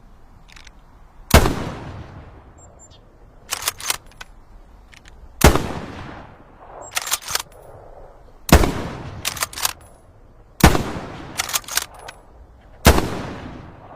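Mosin-Nagant M91/30 bolt-action rifle (7.62×54R) fired five times, a few seconds apart, each shot ringing out briefly. Between shots comes a quick cluster of metallic clicks, the bolt being worked to chamber the next round.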